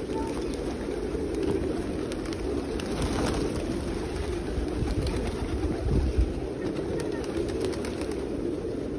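A large flock of feral pigeons cooing together, a steady, dense chorus of many overlapping coos. A brief low thump about six seconds in.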